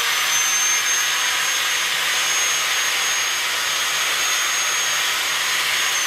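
Electric angle grinder running steadily at full speed: a high, even whine with a thin whistling tone above it. The pitch of that tone sags a little near the end.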